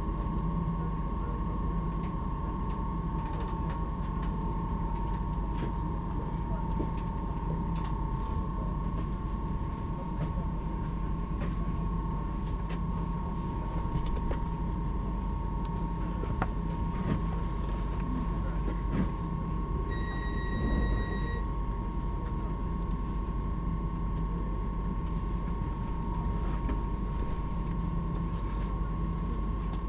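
Inside a standing Stadler DOSTO double-decker electric train: a steady high whine from its onboard electrical equipment over a low rumble, with a single beep lasting about a second and a half about two-thirds of the way in.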